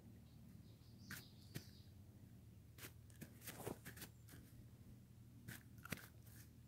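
Near silence: faint, scattered clicks and taps, about a dozen, over a low steady hum, from handling close to a camera set down lens-down.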